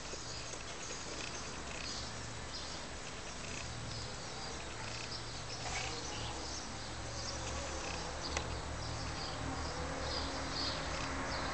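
An insect buzzing on and off over steady outdoor background noise, with a single sharp click about eight seconds in.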